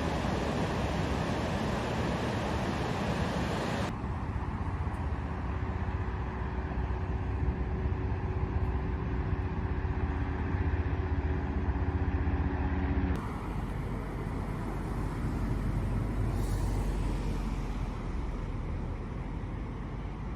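Outdoor background noise in three abruptly cut segments: a steady hiss first, then a low, steady engine rumble with a constant hum, typical of an idling vehicle, then a quieter low rumble.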